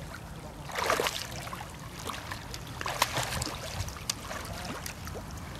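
A dog splashing as it wades and swims through shallow sea water, the loudest splashes about a second in and again near three seconds in, over a low steady rumble.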